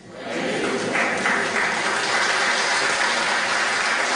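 Audience applauding in a large hall, building up over the first second and then clapping steadily.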